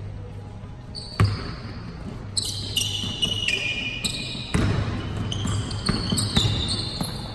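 Basketball bouncing on a hardwood gym floor, with one sharp loud bounce about a second in and more thuds later. From about two seconds in, sneakers squeak on the court in short high-pitched chirps.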